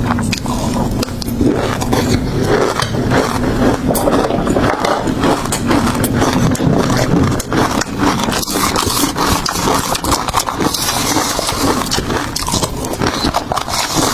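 Close-miked eating of seafood: steady crunching, chewing and crackling, with many small clicks and no pauses.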